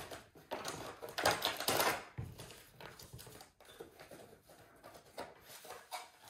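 Cardboard box flaps and a paper insert rustling and crinkling as a small retail box is opened and its contents pulled out. A run of rustles, loudest one to two seconds in, then softer handling.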